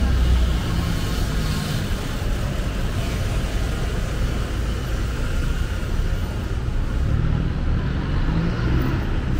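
Street traffic: vehicle engines and passing cars, a steady low noise.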